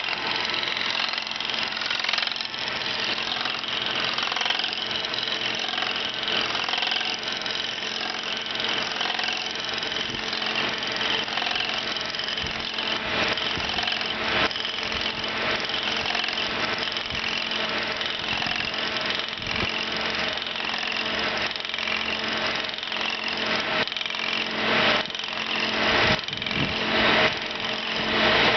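Ober No. 11 copy lathe running, its spinning cutter head chipping a hickory axe handle blank, a dense rapid chatter over a steady motor hum. The cutting gets louder and choppier near the end.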